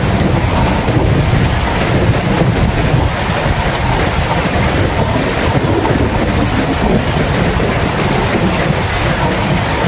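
Heavy rain falling steadily, with a deep continuous rumble underneath.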